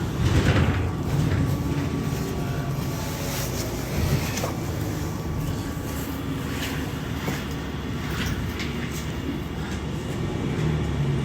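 Inside a moving city bus: steady engine and road rumble with rattles and knocks from the cabin. There is a louder jolt at the very start and another knock about four seconds in.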